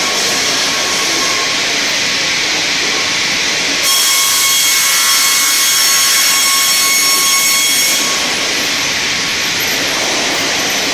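The StrojCAD D9 double-blade circular sawmill running with a steady loud whir. From about four seconds in, its two circular saw blades cut through a spruce log, adding a louder high whine with several ringing tones. The whine stops sharply about four seconds later, when the cut ends.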